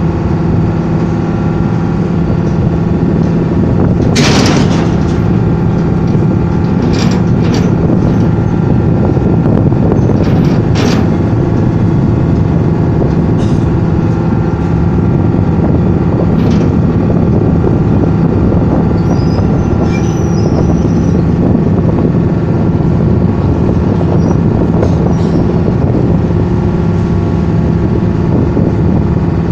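A boat's engine running steadily and loudly while under way on the river, with the rush of noise that goes with it. A few sharp knocks cut through it now and then.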